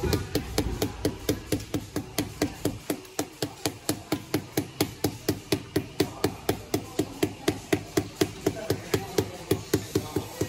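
Rubber mallet tapping a 30×30 cm ceramic floor tile in rapid, even knocks, about four to five a second, each with a short hollow ring. It is bedding the tile down into the fresh mortar bed to level it.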